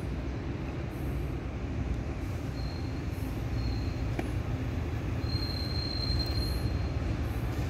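Taiwan Railways train approaching slowly, a low rumble that gradually grows louder, with a thin high-pitched wheel squeal breaking in briefly about three seconds in and again for over a second from about five seconds.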